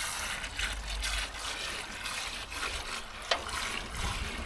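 Liquid driveway sealer trickling and splashing as it is poured into a container.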